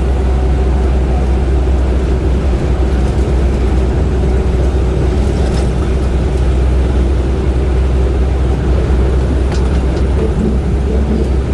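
Steady low rumble of engine and road noise from a vehicle driving on the highway.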